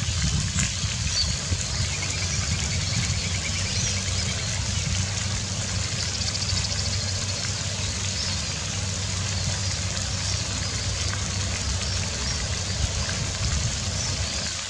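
Steady low rumble under a background hiss, like outdoor ambience with distant traffic. Faint high trills come in about two seconds in and again about six seconds in.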